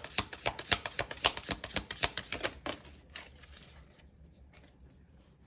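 A deck of cards being shuffled by hand: a fast run of crisp clicks that stops about three seconds in, followed by a few faint taps.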